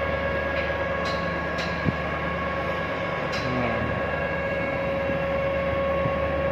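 Steady drone of heavy machinery with a constant high whine, broken by a few faint metallic clinks and one sharp knock about two seconds in.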